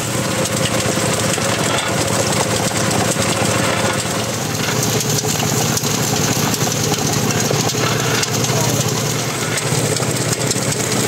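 Engine driving a roller sugarcane crusher, running steadily with a continuous drone.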